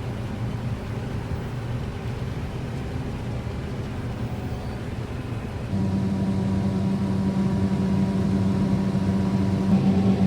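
Combine harvester running steadily while cutting soybeans. A little over halfway through, it turns louder, with a strong steady low engine hum.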